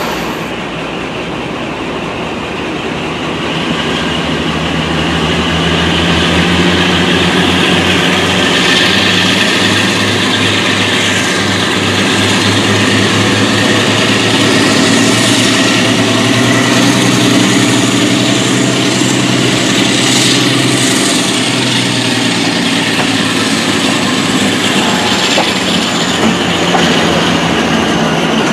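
Diesel locomotive engine worked hard under full power at the head of the train, heard from a carriage window: a deep, pulsing drone that builds about three seconds in and holds. A faint high whine rises and then slowly falls over it in the second half.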